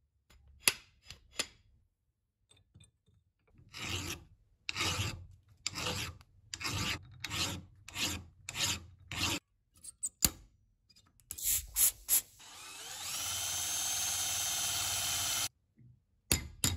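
A flat hand file scraping back and forth across the rusty iron head of an antique nail puller clamped in a vise, about ten even strokes, with a few sharp metal clicks before and after. Near the end a drill spins up and runs steadily for about three seconds, then stops.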